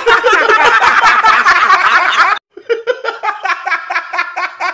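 Several men laughing hard together, cutting off abruptly about two and a half seconds in, then a man laughing in quick repeated bursts.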